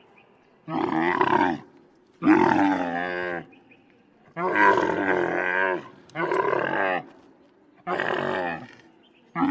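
Wild Bactrian camel calling: about five separate pitched, moaning calls, each about a second long with short quiet gaps between them, and another call beginning at the very end.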